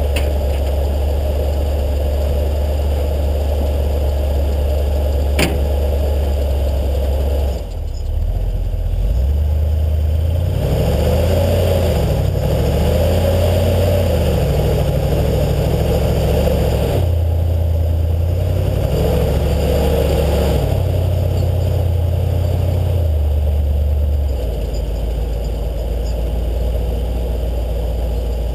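A 4x4's engine running under changing throttle, its note stepping up and down every second or two in the middle stretch and settling to a lower, steady note near the end, with one sharp click a little over five seconds in.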